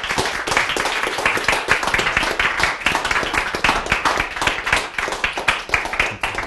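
A small audience applauding, many hands clapping densely and steadily.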